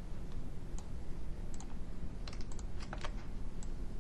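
Light clicks from a computer mouse and keyboard, scattered, with a quick run of several clicks a little past halfway, over a steady low room hum.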